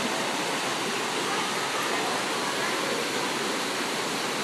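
Steady rush of running water in a stingray touch pool.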